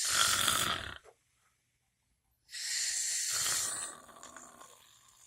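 Put-on, exaggerated snoring by an adult: one snore that ends about a second in, then a second snore about two and a half seconds in that trails off quietly.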